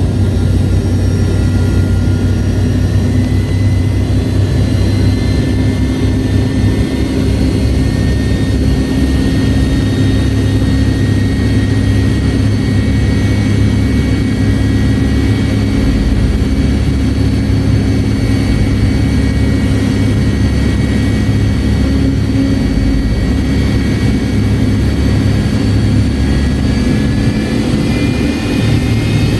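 The left-side rear-mounted Pratt & Whitney JT8D turbofan of a McDonnell Douglas MD-88, heard from inside the rear cabin, running steadily at taxi power. It makes a low, even rumble with a faint high whine over it. Only the left engine is running, for a single-engine taxi.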